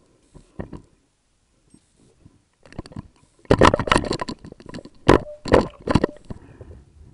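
Pufferfish striking at an underwater camera rig, heard through the camera housing: one small knock about half a second in, then from about halfway through a quick run of loud, sharp clicks and knocks.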